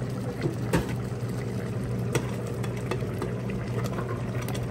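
Steel ladle stirring carrot pieces into simmering gravy in an aluminium pressure cooker, with a few light clinks of the ladle against the pot over a steady low hum.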